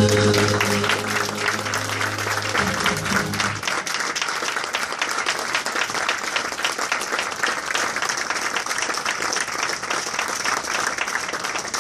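Congregation applauding at the end of a gospel song, steady clapping throughout, while the song's last held accompaniment chord dies away over the first three or four seconds.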